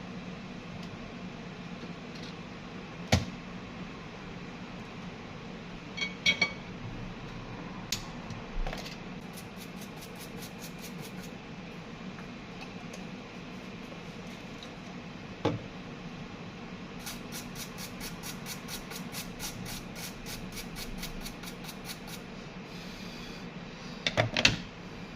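Small tools and phone parts being handled on a repair bench: scattered sharp clicks and knocks, the loudest cluster near the end, over a steady low hum. Twice a run of faint, even ticking at about four a second.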